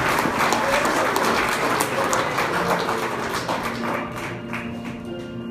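Guests applauding, the clapping thinning and dying away over the last couple of seconds as music with sustained notes comes up underneath.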